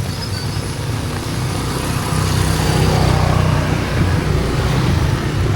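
Street traffic in heavy rain: a vehicle engine running close by, its low rumble growing a little louder about two seconds in, over the steady hiss of rain.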